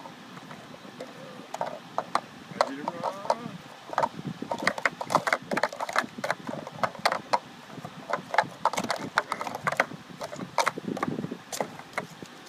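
Plastic sport-stacking cups clacking together and against a wooden tabletop as they are rapidly stacked up into pyramids and swept back down. The clacks come fast and uneven, densest in the middle stretch.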